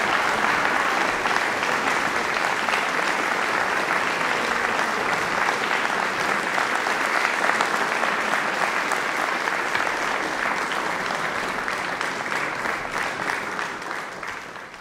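Audience applauding steadily, a dense patter of many hands clapping, fading out near the end.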